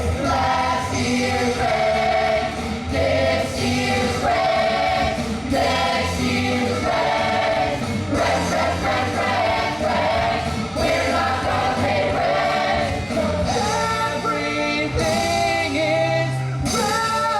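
A stage cast singing together in chorus over musical accompaniment, ending on a long held chord near the end.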